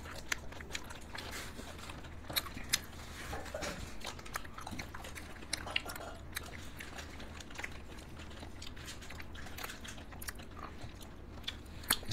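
People eating ice cream bars on sticks: scattered short, wet mouth clicks and bites as they lick and bite into the bars.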